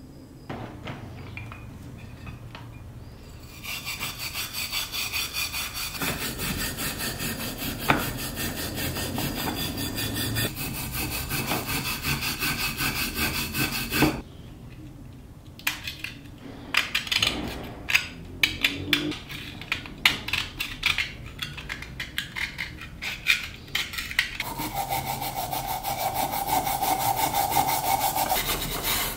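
Stiff hand brush scrubbing a rusty steel lock plate under liquid in a plastic tub, with rapid back-and-forth rasping strokes. About halfway through the strokes stop briefly, then come in separate scrapes before the steady scrubbing resumes.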